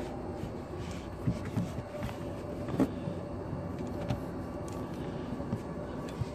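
Steady low hum with a few short, light clicks and knocks from a spring and latch parts being handled in a car's frunk.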